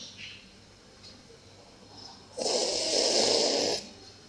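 A sleeping dog snoring: one long snore starting a little over two seconds in and lasting about a second and a half.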